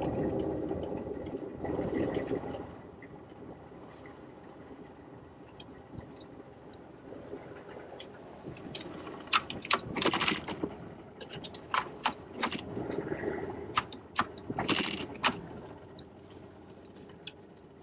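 Boat motor running low and steady, louder for the first few seconds and then quieter. It is followed by a run of sharp knocks and scrapes over several seconds.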